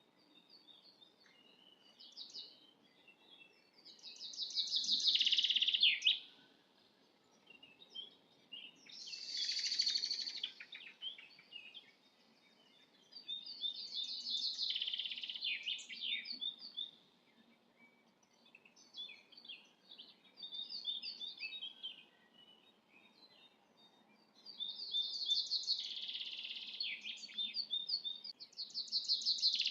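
Songbirds singing: trilled phrases of about two seconds repeated every few seconds, with scattered short chirps in between.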